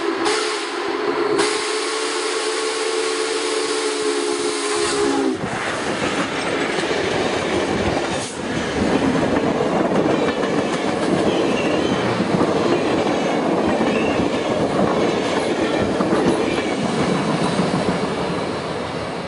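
Union Pacific 844's steam whistle blowing one long chord that stops about five seconds in, dipping slightly in pitch as it closes. Then a steam passenger train passing close by, with loud noise of wheels on rail and cars going past that eases a little near the end.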